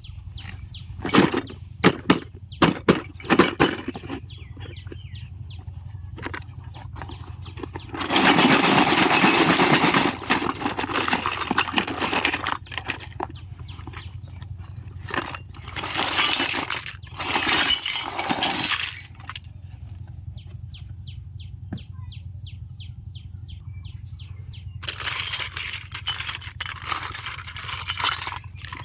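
Miniature plastic toy kitchen pieces and their packaging being handled and unboxed: scattered clicks and knocks of small hard pieces, several stretches of loud rustling of the packaging, and a quick run of fine ticks near the middle.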